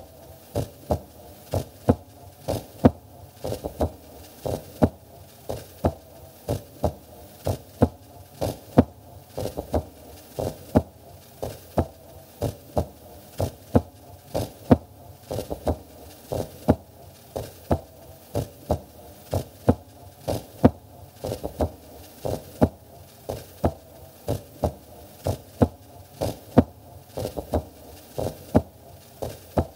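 A heartbeat-like pulse, a double thump repeating steadily about once a second over a faint hum.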